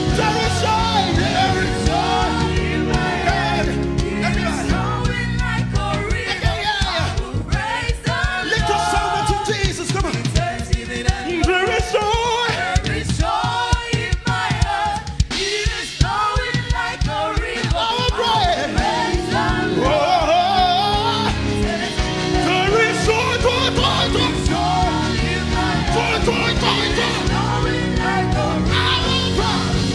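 Gospel worship music: voices singing over held low chords. The sustained chords thin out for several seconds in the middle, leaving the singing over a beat.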